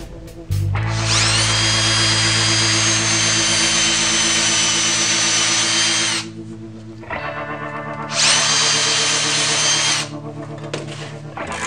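Handheld power drill boring into cherry wood with its bark on. There are two runs, the first about five seconds long and the second about two, each spinning up to a steady whine and then stopping.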